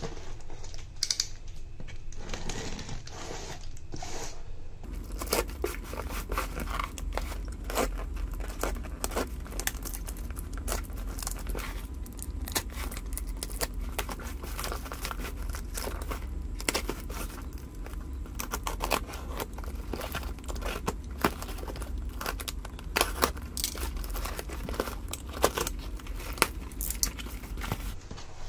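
A plastic-wrapped cardboard parcel being slit open with a box cutter and unwrapped: the clear plastic wrap and tape tear and crackle in a dense run of sharp crackles. Near the end, paper packing crinkles as the box is opened.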